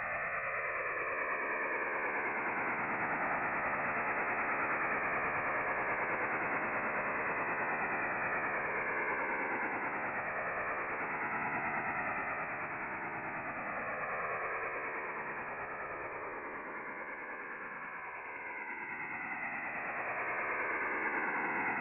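French Navy STANAG 4285 HF data-modem signal as heard through a receiver: a steady, dense hiss-like buzz filling the audio band up to about 3 kHz. Slow fades sweep downward in pitch through it over a few seconds at a time.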